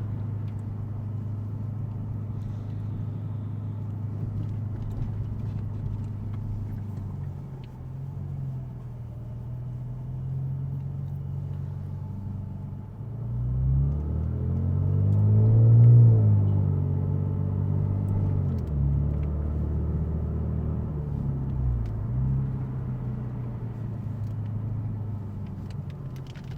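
Infiniti Q60's twin-turbo V6 heard from inside the cabin. It runs steadily at cruise, then revs up to its loudest, highest pitch about two-thirds of the way through and eases back down, with a brief dip in pitch near the end.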